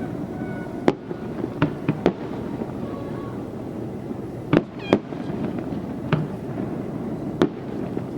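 Fireworks bursting overhead: about eight sharp, irregularly spaced bangs, two coming close together near the middle, over steady background noise.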